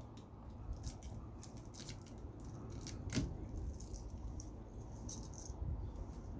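Light metallic clicks and rattles from pliers, screwdriver and scrap copper being handled, with a louder clink about three seconds in.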